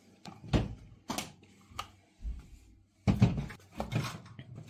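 Knocks and clunks of a UDT UCS-45S chainsaw being handled on a table, its plastic and metal body bumping, with a heavier cluster of thuds a little after three seconds as the saw is set down.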